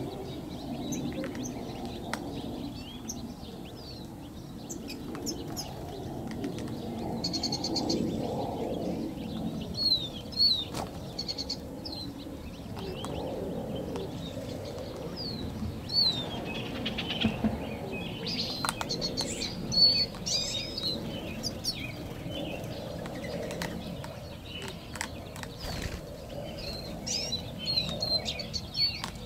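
Gambel's quail chicks peeping: many short, high chirps, often sliding in pitch, coming in scattered clusters, busiest in the second half. Scattered sharp clicks and a steady low background noise run underneath.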